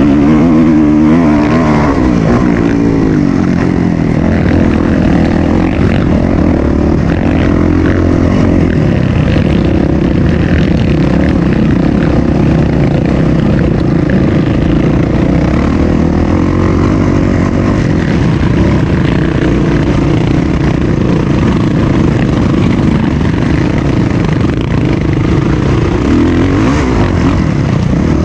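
Off-road motorcycle engine running under way. Its pitch rises and falls in the first couple of seconds, then it holds a fairly steady, rough drone.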